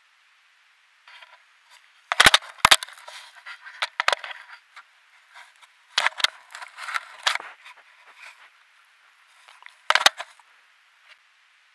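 Brown bear nosing and pawing at the trail camera, the housing knocked and scraped right at the microphone: sharp knocks with crackling scrapes between, loudest about two seconds in, near six seconds and again near ten.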